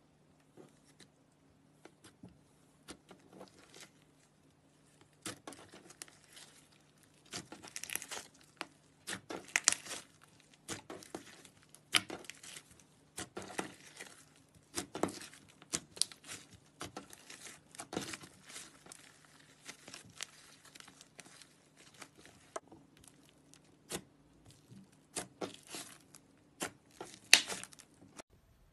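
Slime being squished and stretched by hand, giving irregular crackling and popping sounds, sparse at first and then coming thick and fast.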